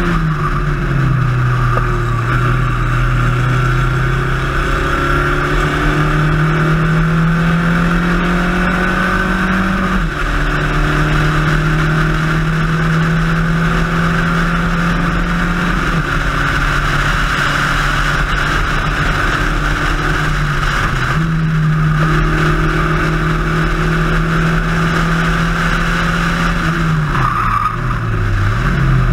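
Spec Racer Ford race car's engine at racing speed, heard from inside the cockpit over steady wind and road hiss. The pitch steps down at an upshift about a second in, climbs slowly to another upshift about ten seconds in, drops back for several seconds in the middle, and falls then rises again near the end as the car brakes and downshifts.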